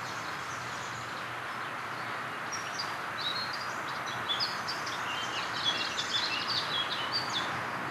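Songbirds chirping and singing in quick, short high notes, starting about a third of the way in, over a steady background hiss.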